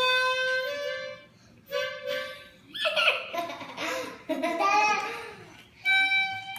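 A child blowing short, held notes on a saxophone: a first note that steps up in pitch, a second short note, then a stretch of laughter, and a higher held note near the end.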